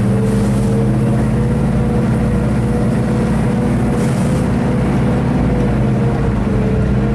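BRDM armoured scout car's engine running steadily under load as it drives over rough grassy ground, heard from on top of the hull.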